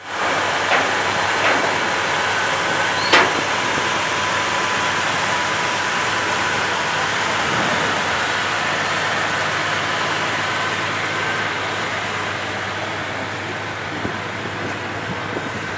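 Steady outdoor background noise with faint steady hums, and one short sharp click about three seconds in.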